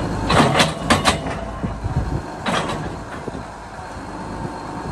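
Small rocks clattering against the metal of a PFM 521 hydraulic rock picker as its reel sweeps them up: a few sharp knocks in the first second and another about two and a half seconds in. The tractor's engine runs steadily underneath.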